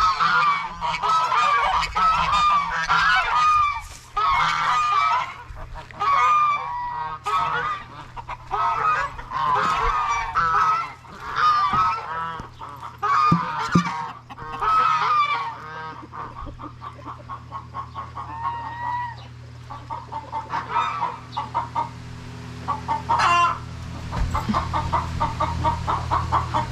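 A hen calling loudly in long repeated squawks, then settling, about sixteen seconds in, into fast, steady clucking of several clucks a second.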